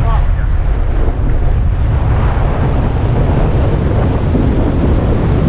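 Wind buffeting the microphone on a moving boat, a steady low rumble mixed with the rush of water.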